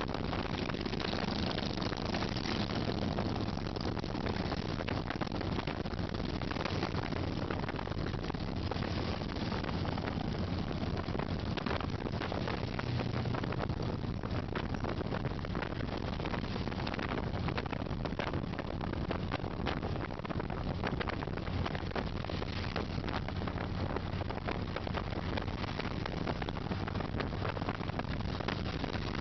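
Steady engine drone and wind rush of a vehicle travelling at highway speed, with wind buffeting the microphone and a constant low engine hum underneath.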